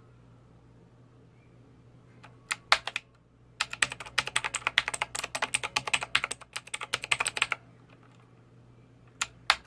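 Keys of a Lutis LUNATIC K803 optical-switch gaming keyboard clicking as they are pressed: a few presses, then about four seconds of rapid typing, then two or three more presses near the end.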